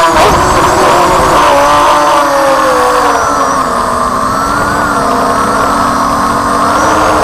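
ZMR250 FPV racing quadcopter's motors and propellers whining with the throttle. The pitch sinks about three seconds in and climbs again near the end.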